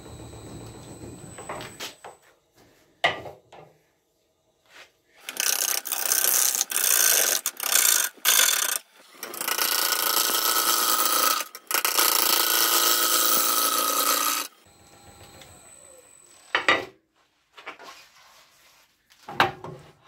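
Turning gouge cutting into a large alder blank spinning on a wood lathe: a loud rasping cut that comes in several passes from about five seconds in until about fourteen seconds, with brief breaks between passes. Before and after the cutting the lathe runs more quietly, and a couple of sharp knocks come near the end.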